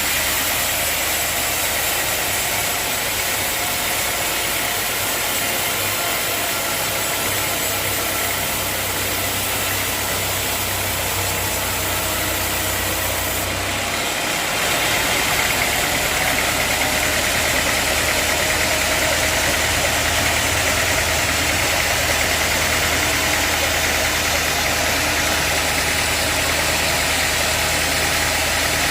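Sawmill machinery running steadily: an engine note under a hiss. About halfway through the sound changes abruptly and gets slightly louder.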